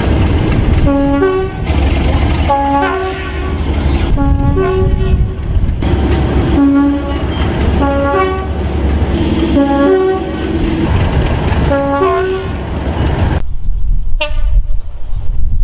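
Train two-tone horn played repeatedly, alternating high and low notes, over the heavy rumble of a train. Near the end the rumble cuts off suddenly and a short horn note is heard.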